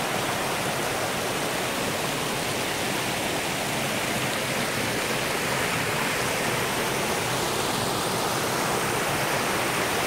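Steady rush of water pouring and flowing over rocks at Gandahati waterfall on the Mahendratanaya River, an even hiss with no breaks or changes.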